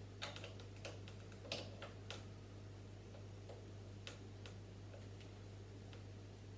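Plastic Lego pieces being handled and pressed together: small irregular clicks, most in the first two seconds and a couple more about four seconds in, over a faint steady low hum.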